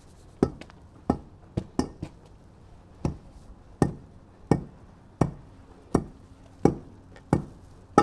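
Steel hand tamper pounding fresh asphalt along a curb: a steady run of sharp, slightly ringing strikes, roughly three every two seconds, about a dozen in all.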